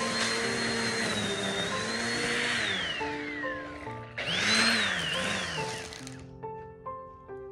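Corded electric trimmer's motor running with a high whine, then winding down about two and a half seconds in. It is switched on again for a short burst that rises and falls, and spins down. Background music with gentle melodic notes plays throughout and is left alone at the end.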